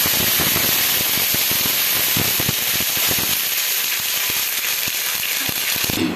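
Hot tadka of oil, mustard seeds, green chillies and curry leaves sizzling hard in a steel kadai as water goes in and a ladle stirs it: a loud steady hiss full of crackling, spitting pops. The popping thins out about halfway through, and the sound stops abruptly near the end.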